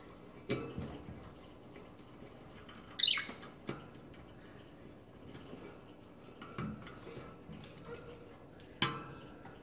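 A caged pet bird chirping once sharply about three seconds in, with a falling pitch, among a few short knocks and rattles from the cage and its perches.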